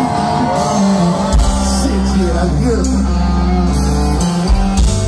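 Loud live band music: a singer's voice over guitar and heavy held bass notes. The bass comes in about a second and a half in.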